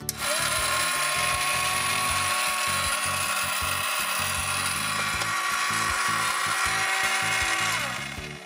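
Small battery motor of a toy electric kettle running with a steady whine and hiss for about eight seconds. The whine rises as it starts and sinks as it stops near the end.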